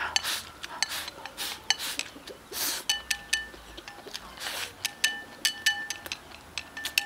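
Chopsticks clinking against a ceramic bowl, several quick clinks with a short ringing tone from about three seconds in, among loud slurps as food is eaten straight from the bowl.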